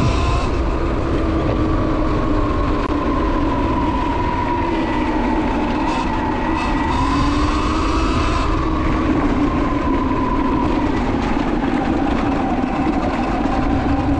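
Sur Ron X electric dirt bike riding at speed: the electric drive whines, its pitch rising and falling gently with speed, over a steady low rumble.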